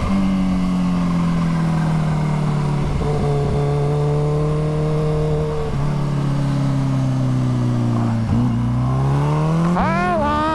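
Kawasaki Ninja H2's supercharged inline-four engine running under the rider, with wind rush. Its note sinks slowly for about eight seconds, then after a brief break it climbs steadily as the bike accelerates near the end.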